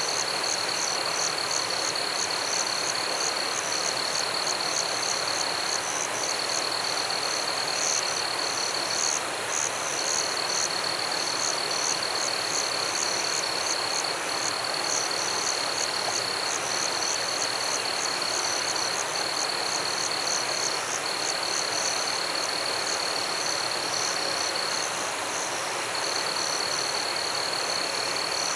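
Forest chorus of frogs and insects calling without pause: a steady high trill that breaks off for a moment every few seconds, with quick pulsing chirps above it, over a constant even hiss.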